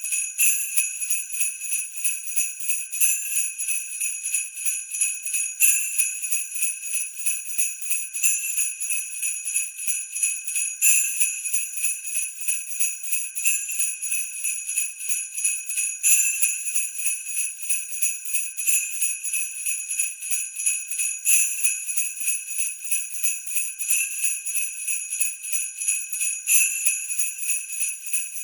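Sleigh bells shaken in a steady rhythm, about four shakes a second, jingling brightly throughout. A stronger accent comes every two and a half seconds or so.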